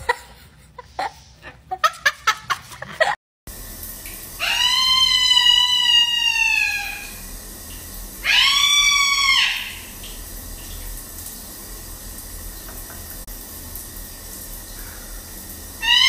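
Male eclectus parrot calling: three long, pitched calls rich in overtones, the first about four seconds in trailing down at its end, the second shorter and arching up and down about eight seconds in, the third near the end. A few light clicks and taps come before them.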